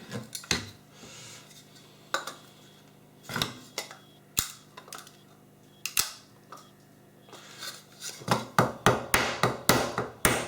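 Scattered knocks on an electrical connection box, then from about eight seconds in a quick run of repeated strikes, about three a second, as a knockout in the box is hammered out.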